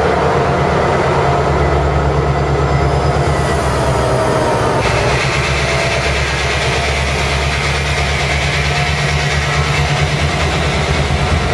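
Metrolink diesel locomotives running steadily beside the platform: a deep, constant engine drone, with a louder hiss joining about five seconds in.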